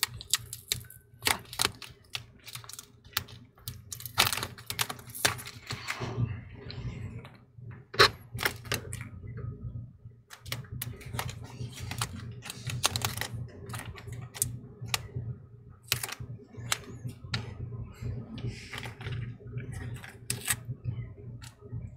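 Irregular small clicks and taps of a precision screwdriver and fingers on the open laptop's motherboard, connectors and chassis, as cables are unplugged and screws worked loose. A faint steady hum runs underneath.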